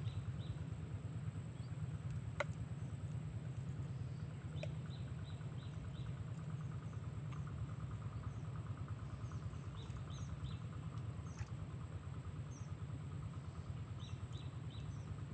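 Outdoor ambience: small birds chirping in short series of three or four quick notes every few seconds over a steady high insect whine and a low rumble, with a single sharp click about two and a half seconds in.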